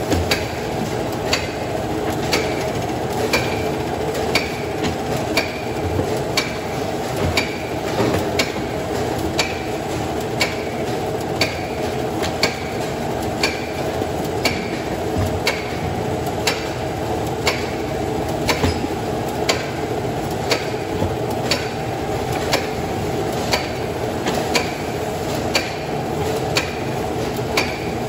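Razorback Model C bacon slicer running: a steady motor hum with a regular clack about three times every two seconds, some clacks followed by a brief ring.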